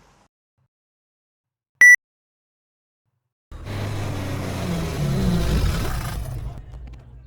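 A single short, sharp high beep, then after a pause a car engine running as the car moves, its pitch rising and falling for a few seconds before it fades away.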